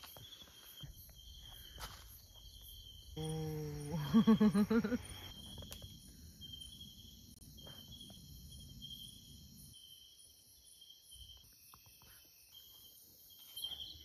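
Night insects, crickets among them, chirring in a steady pulsing chorus of about two pulses a second, with a thinner high trilling above. About three seconds in, a louder low pitched call or voice breaks in for about two seconds.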